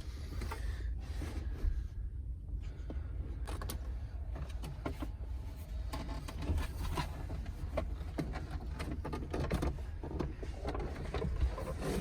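Scattered clicks and knocks of a pickup's plastic jump seat and center console being handled and shifted in the cab, over a steady low rumble.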